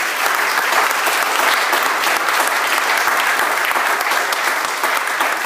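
Audience applauding: many hands clapping, loud and steady.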